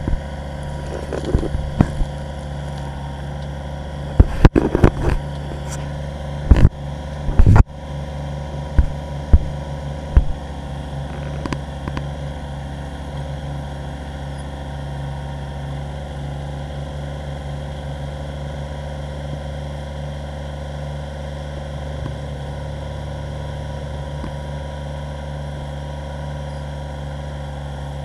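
Kubota compact tractor's diesel engine running steadily while its backhoe works a trench, with several sharp clanks and knocks from the backhoe bucket and linkage in the first ten seconds, then only the even engine drone.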